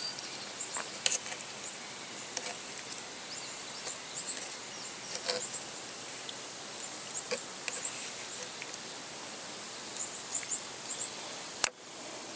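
Outdoor ambience with faint insect and bird chirps, and a few soft taps of a knife and tomato slices on a cutting board. A single sharp click comes near the end.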